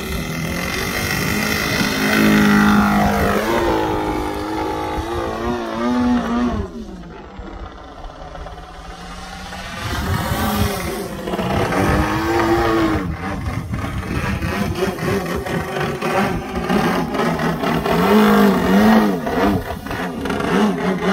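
OS GT33 single-cylinder two-stroke petrol engine of a large radio-controlled Extra 330 aerobatic model plane, running hard on takeoff and through aerobatics. Its pitch falls steeply as the plane passes, about two to six seconds in, and drops lower and quieter around seven to nine seconds. From about ten seconds in it rises and falls again and again with the throttle changes.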